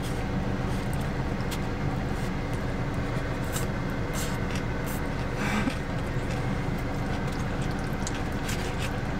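Steady low hum of a car idling, heard inside the cabin, with a few wet mouth clicks and a slurp of chow mein noodles about four seconds in.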